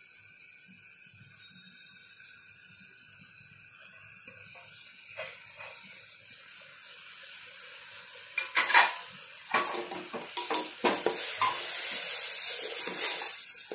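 Dry-roasted broken wheat being poured into a metal pressure cooker of frying vegetables, sizzling faintly at first. About halfway through it grows louder as a spoon stirs the grains in, with repeated knocks and scrapes of the spoon against the pot.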